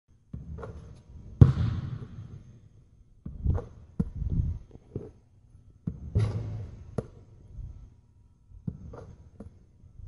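A basketball bouncing on a hard court in an irregular series of thuds. Two louder hits ring on afterwards, about one and a half seconds in and again about six seconds in.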